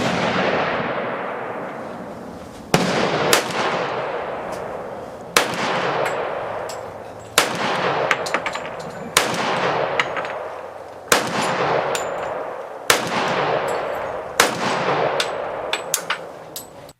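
Colt 1911 .45 ACP pistol fired in slow, steady single shots, about eight of them roughly two seconds apart. Each loud report trails off in a long echo, with a few fainter clicks between shots.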